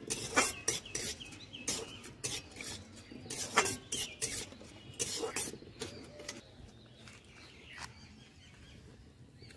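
Flat metal spatula scraping and knocking against a dark iron wok while stirring red lentils in a little oil, in irregular strokes that fade out about eight seconds in.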